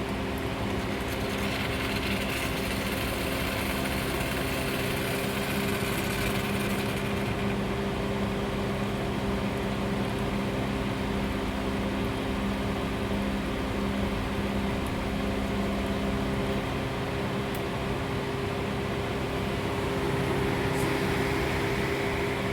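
Sage espresso machine's pump humming steadily as it dispenses hot water, the machine working normally after repair. A hiss joins in from about one second in and fades out around seven seconds in.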